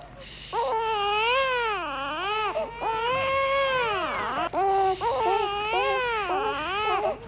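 A baby crying loudly in long wailing cries whose pitch rises and falls, with short breaks for breath about half a second in and again past the middle.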